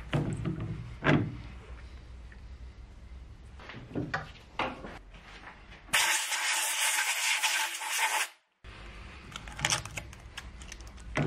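Compressed-air blow gun hissing in one loud blast of about two seconds, blowing swarf off a lathe's three-jaw chuck. Light metallic knocks and clicks of parts being handled come before and after it.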